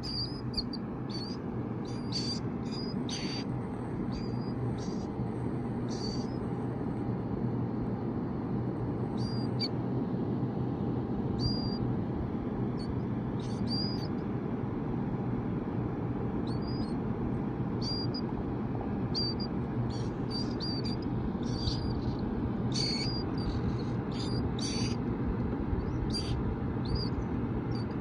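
Baby killdeer chicks peeping: short, high, thin peeps that come singly or a few at a time, scattered throughout, over the steady low hum of a space heater's fan.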